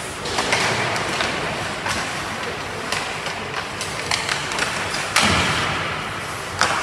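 Ice hockey play in an echoing rink: skates scraping the ice and sticks and puck clacking, with a loud bang about five seconds in and another shortly before the end.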